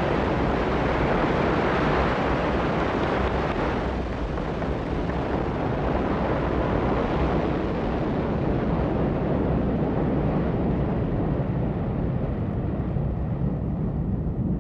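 Ariane 5 rocket's main engine and two solid boosters in a steady, deep roar in the first seconds after liftoff. The sound grows duller as the rocket climbs away.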